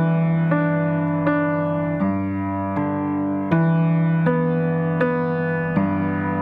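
Background music: a soft piano or electric piano playing slow sustained chords, a new note or chord struck about every half second to second.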